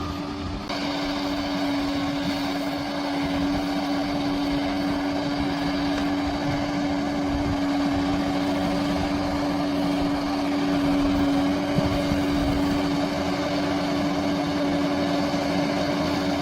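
Large bulldozer's diesel engine running steadily under load, with a constant droning tone over the rumble.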